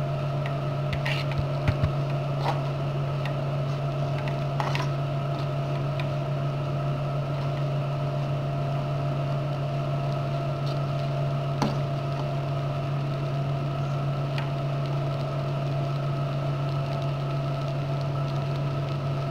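Spaghetti being stirred and tossed in a stainless steel frying pan, with a handful of short, light clicks of the utensil against the pan, most of them in the first five seconds. A steady low electrical hum runs underneath and is the loudest sound.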